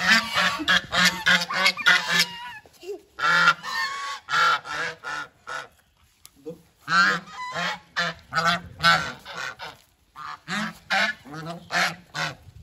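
Flock of domestic geese honking, many rapid overlapping calls in about four bouts separated by short pauses.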